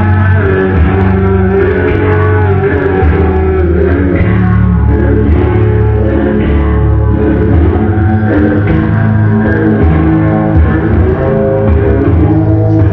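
Loud rock music with guitar and bass playing steadily.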